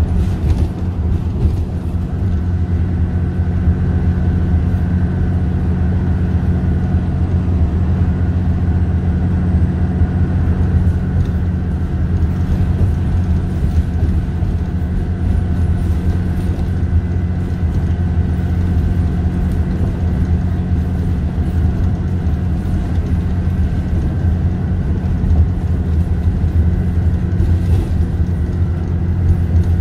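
Euro 4 Cummins ISC six-cylinder diesel engine of a Dennis Trident II / Enviro400 double-decker bus running steadily at cruising speed, heard from inside on the upper deck, with a faint steady whine above the low engine drone.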